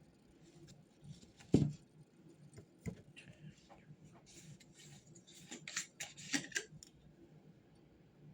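Small sounds of someone studying at a desk: a single sharp thump about a second and a half in, a lighter knock, then a quick run of small clicks and paper rustles.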